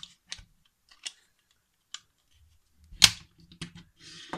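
Hard plastic toy clicking and knocking against a wooden shelf as it is handled and set down: a handful of light clicks with one sharper knock about three seconds in.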